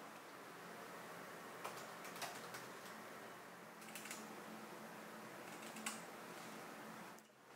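Light typing on a laptop keyboard: a few scattered groups of soft key clicks over a faint steady hiss.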